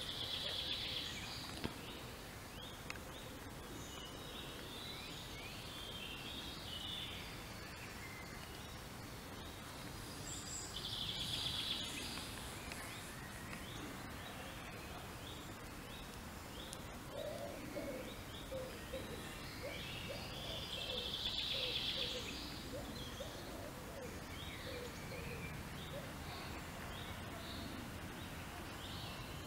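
Birds singing over steady outdoor background noise. A high song phrase comes three times, about every ten seconds, with scattered short chirps between, and a run of quick lower notes comes about two-thirds of the way through.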